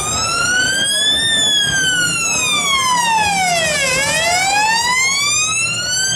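Police Land Rover Discovery's siren on a slow wail, its pitch rising and falling in long smooth sweeps: highest about a second in, lowest about four seconds in, then climbing again.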